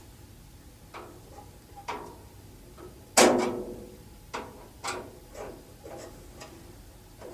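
Irregular light metallic knocks and clinks as a blower and sheet-metal range hood liner are worked on while their screws are tightened, with one louder ringing clank about three seconds in.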